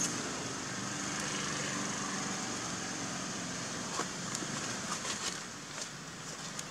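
Steady outdoor background noise with a low hum, and a few short light clicks about four to five seconds in.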